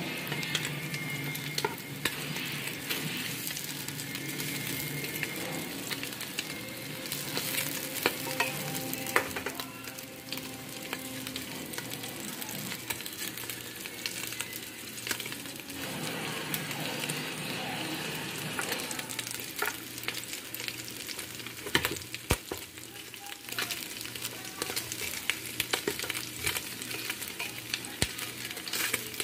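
Pork chunks sizzling in hot oil as they brown in a pot, with scattered clicks of tongs against the pot as the pieces are turned, more of them in the second half.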